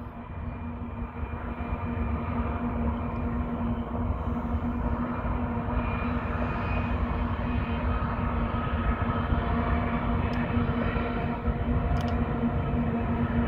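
Several Union Pacific diesel-electric freight locomotives running, heard from a distance: a steady low rumble with a constant engine drone over it.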